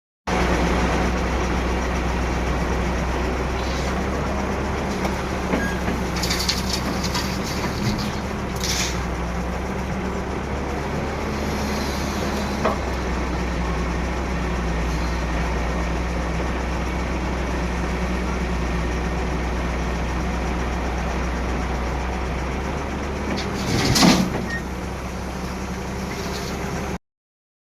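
Hyundai R210 excavator's diesel engine running steadily, with one loud clank near the end before the sound cuts off suddenly.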